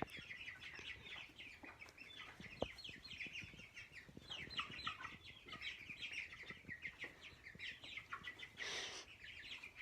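A flock of young broiler chickens peeping softly and continuously, with many short, high, downward-sliding chirps overlapping. A brief rustling noise comes near the end.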